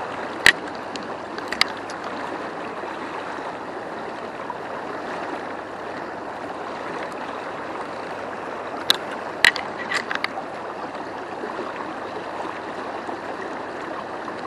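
Steady rush of a fast-flowing river current. A few sharp clicks break through about half a second in and again around nine to ten seconds.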